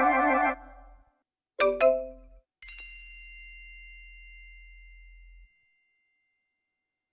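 iPhone alert tones played one after another. First a warbling, buzzy tone cuts off about half a second in. Then a quick run of a few notes, and at about two and a half seconds a single bell-like ding that rings out and fades over about three seconds.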